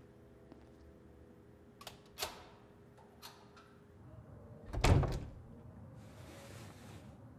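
A door shutting with a heavy thud about five seconds in, after a few faint clicks. A soft hiss follows.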